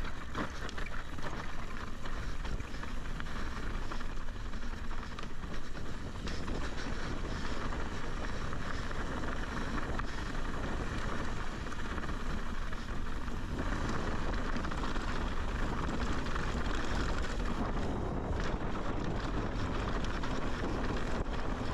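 Wind buffeting the microphone of a helmet-mounted action camera on a fast mountain-bike descent, over the steady crunch of tyres on dry, rocky dirt trail with scattered small clicks and rattles from the bike.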